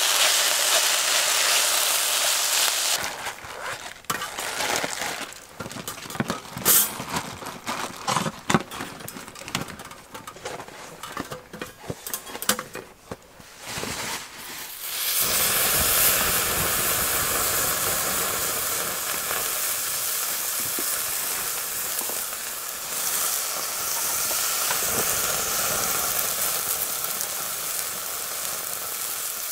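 Food sizzling steadily in a frying pan on a wood-fired camp stove. About three seconds in the sizzle gives way to a quieter stretch of crackling and sharp clicks, and the steady sizzle returns about fifteen seconds in.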